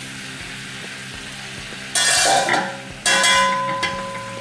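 Skewered chicken malai tikka pieces frying in a wok in butter, oil and the liquid the chicken has let out: a low steady sizzle, with two loud bursts of hissing about two and three seconds in.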